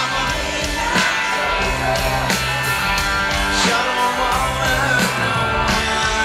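Rock band playing live, with electric guitars, bass and a drum kit keeping a steady beat under a sung lead vocal, recorded from the audience in a large hall.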